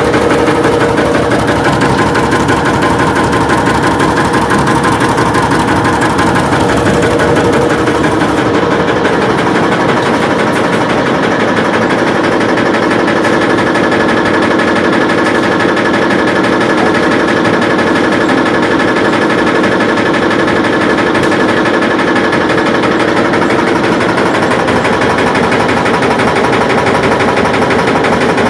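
Vehicle engine running with a fast, steady mechanical knocking noise.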